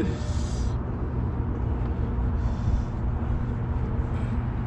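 Steady low rumble of distant road traffic, with a brief hiss near the start.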